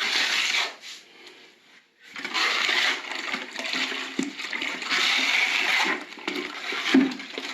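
Wet rubbing and scraping strokes as grout is worked across the joints of a terracotta tile floor, in about three longer passes, with a couple of short knocks near the middle and end.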